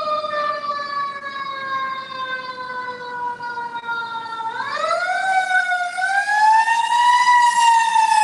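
Emergency vehicle siren wailing: its pitch sinks slowly for about four seconds, then swoops up sharply, climbs to a peak near the end and begins to fall again.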